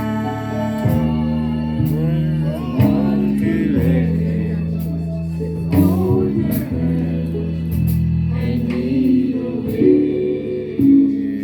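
Gospel music with singing and a guitar or keyboard accompaniment, sustained notes with wavering voices over them.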